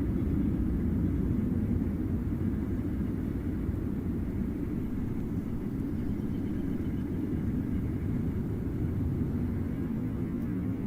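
Military jet aircraft flying overhead: a steady low rumble that eases off slightly over the first couple of seconds.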